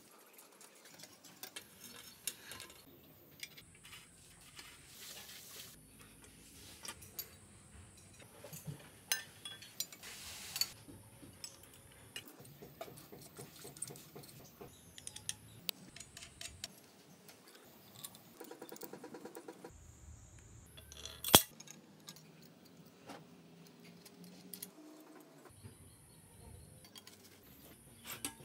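Small steel bicycle parts clinking and clicking as they are handled and fitted: headset bearing cups and the handlebar clamp being put together. A short rapid rattle comes about two-thirds of the way through, followed soon after by one sharp, loud metallic click.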